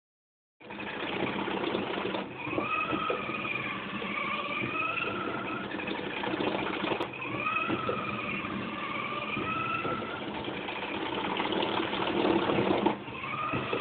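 Rotating slip-ring assembly running under test: a steady mechanical rush with a whine that rises, holds and sags back down twice.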